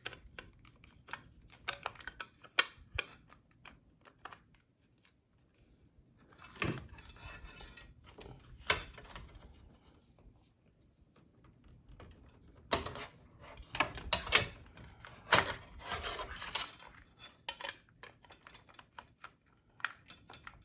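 Irregular clicks, clinks and knocks of hard metal and plastic computer parts being handled and fitted together, coming in clusters with short quiet gaps between.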